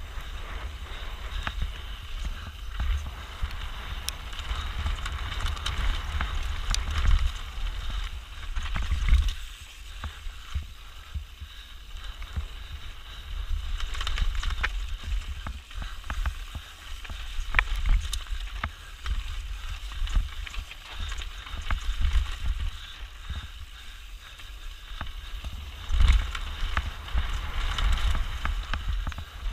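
Mountain bike descending a rough, rocky trail, heard from a camera mounted on the rider: tyres rattling over stones, with frequent sharp knocks and clatter from the bike, under a steady low rumble.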